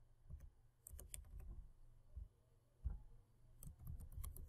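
Faint typing on a computer keyboard: scattered keystrokes in short runs with pauses between, and one louder knock about three seconds in.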